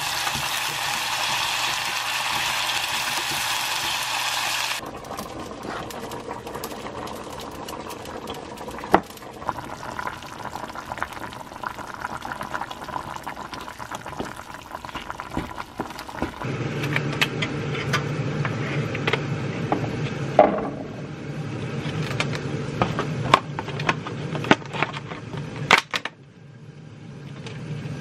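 Diced potato, carrot and green vegetables sizzling in oil in a frying pan as a wooden spatula stirs them. About five seconds in, the sizzle gives way to the quieter bubbling of a curry simmering, with scattered clicks. Later a steadier, lower sound with frequent sharp clicks and knocks takes over.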